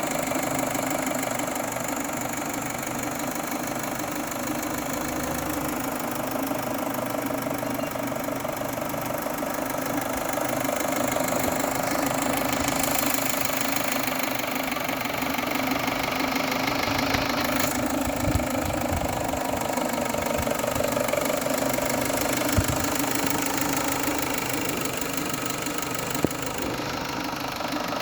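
2.0-litre turbocharged gasoline engine running steadily with a strange noise, the sign of a timing belt that has jumped one tooth. A few short sharp clicks stand out in the second half.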